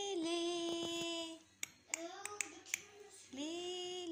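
A high voice singing or humming long held notes without words, each sliding up into the note and then holding steady, three times, with a few sharp clicks in between.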